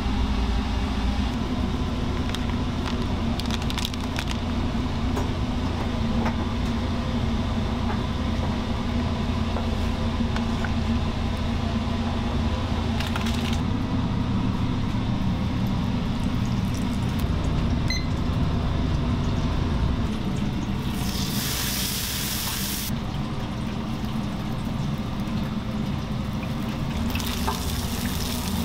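A steady low rumble runs beneath hot deep-fryer oil sizzling in two loud hissing bursts, one about three-quarters of the way in and one near the end as breaded chicken goes into the oil.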